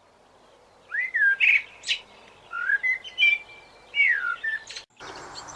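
A songbird singing short whistled phrases of sliding notes, several in a row, with a faint background hiss; it cuts off suddenly near the end.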